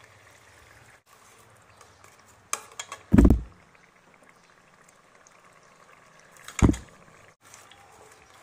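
Hot oil-and-tomato masala bubbling in a cooking pot as yogurt is added and stirred in with a plastic spatula. There are two short loud thumps, about three seconds in and again later.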